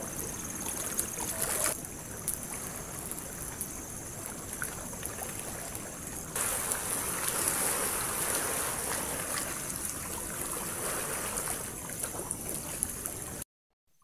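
Steady rushing noise of waves on a beach, with a few sharp campfire crackles in the first couple of seconds. It cuts off suddenly shortly before the end.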